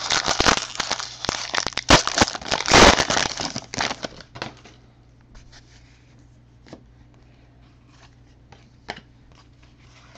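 Foil trading-card pack wrapper being torn open and crinkled, loud for about four and a half seconds. Then it goes quiet apart from a few soft clicks of the cards being handled.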